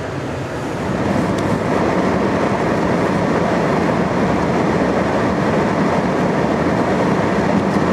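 Gas snowblower engine running steadily under load as it clears snow, getting a little louder about a second in.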